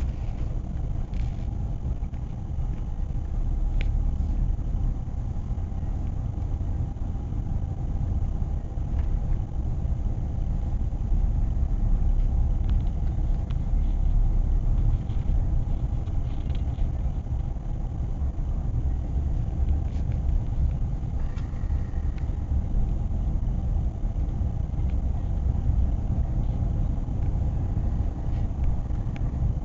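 Road noise heard from inside a moving car's cabin: a steady low rumble of tyres and engine at cruising speed.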